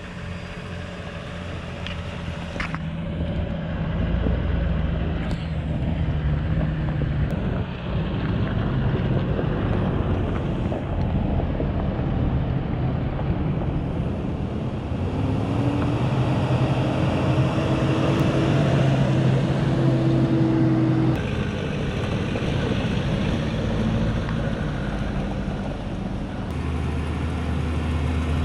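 Off-road 4x4 engine running under way, its pitch climbing for several seconds and then dropping suddenly, as at a gear change, with tyre and wind noise and a few knocks from the track.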